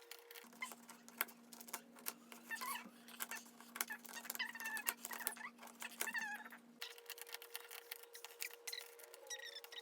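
3x3 Rubik's Cube being turned quickly with one hand: a dense run of fast plastic clicks and clacks as the layers snap round.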